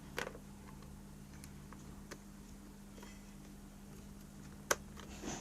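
Scattered small plastic clicks and taps from handling a cheap DT830D digital multimeter as it is reassembled, with a sharper click near the end, over a low steady hum.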